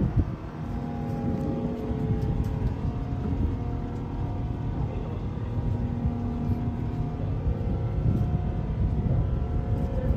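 Wind buffeting the microphone on an open ship's deck, over a steady low machinery hum from the ship.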